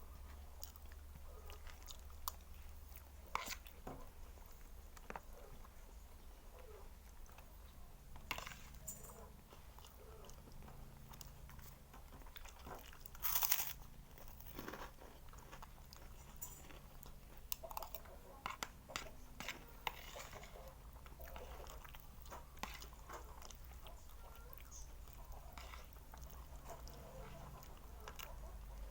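A person eating close to the microphone: chewing and crunching, with scattered small clicks and one louder crunch about halfway through. A steady low hum runs underneath.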